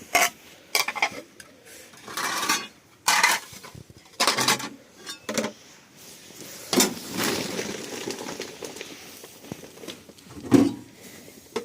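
Pots, dishes and cutlery being handled: irregular knocks and clinks of cookware and utensils.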